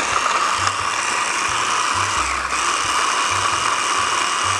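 Electric hand blender on a small chopper bowl running steadily at full speed, grinding basil leaves and a garlic clove into a green paste. Its high motor whine dips briefly about halfway through.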